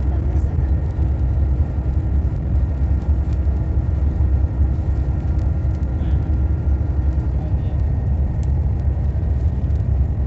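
Cabin noise inside a bus cruising on a motorway: a steady low rumble of engine and tyres on the road surface.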